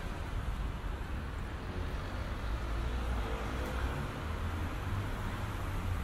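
Steady city street noise: a low, even rumble of road traffic, with no single sound standing out.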